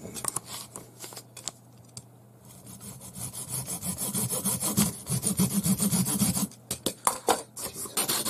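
A hacksaw cutting through a thin tube clamped in a vise. A few light handling clicks come first, then from about three seconds in, quick back-and-forth sawing strokes that grow louder, with a brief pause near the end.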